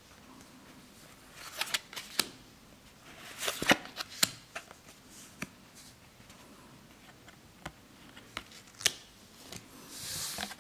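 Magic: The Gathering trading cards being handled, slid one by one off the stack: irregular sharp flicks and snaps of card edges with soft swishes of card sliding on card, and a longer swish near the end as the cards are laid down.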